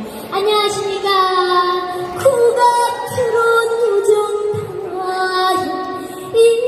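A young girl singing a trot song live into an amplified microphone over a backing track, holding long notes that slide from one pitch to the next.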